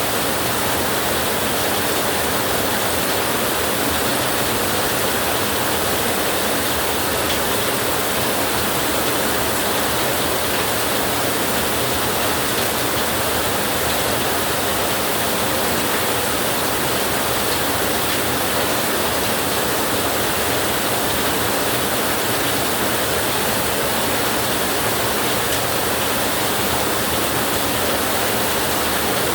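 Heavy rain falling steadily on a tin roof, an even, unbroken hiss.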